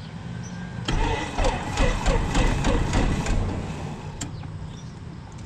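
Light-aircraft piston engine turning over and trying to run, with uneven beats about three a second, starting suddenly about a second in and dying away after about two and a half seconds. It is a start attempt on an engine with an ignition fault that is traced to a magneto broken inside.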